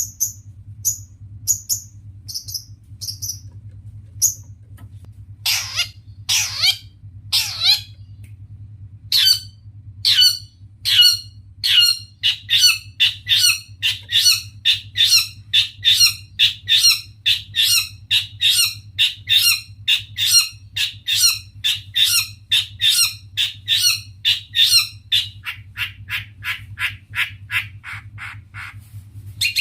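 Long-tailed shrike (cendet) calling. It starts with short high notes about twice a second, then gives a few harsh downward-sweeping calls, then a long steady run of harsh rasping notes about two a second that fades near the end. A faint low hum runs underneath.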